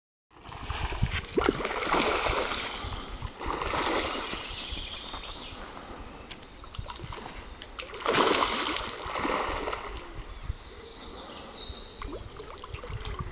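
Spawning carp splashing and thrashing in shallow, weedy water, in several loud bursts of splashing: the strongest come a second or two in and again about eight seconds in.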